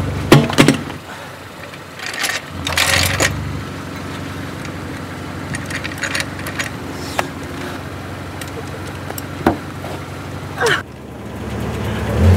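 Scattered metal clicks and clanks of a hydraulic floor jack being worked under a car, over a low steady hum. A low rumble builds near the end.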